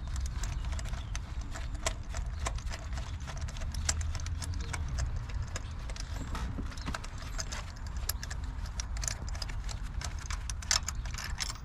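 Socket ratchet clicking in irregular runs as a spark plug is loosened and unscrewed, over a steady low rumble.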